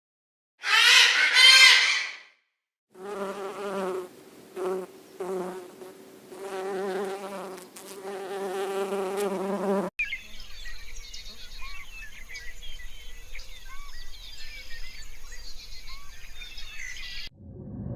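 A short, loud animal call, then a bee buzzing in fits and starts for several seconds. From about ten seconds in come faint, short bird chirps over a steady hiss.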